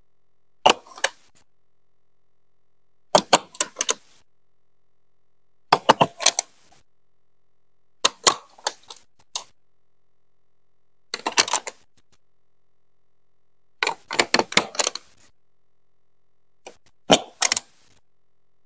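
Large plastic Duplo-style building bricks clicking and clacking as they are set down and pressed onto one another, in seven short clusters of sharp clicks a couple of seconds apart.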